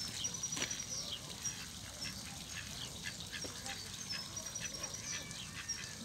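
Mallard ducks calling on a pond, with many short high-pitched chirps and light splashing on the water.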